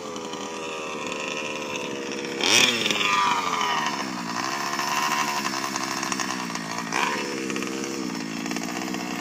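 Small two-stroke engine of a gas-powered RC baja car running. Its pitch rises and falls with the throttle, with quick revs about two and a half seconds in and again near seven seconds.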